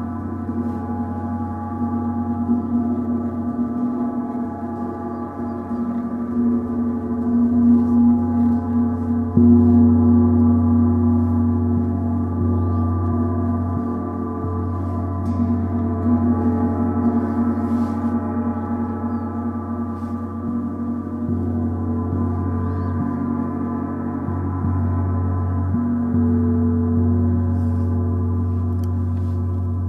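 Gongs, a Bifrost titanium gong and a water gong, ringing in a long sustained wash of many steady overtones over a deep low hum. It swells loudest about eight to ten seconds in, then slowly eases off.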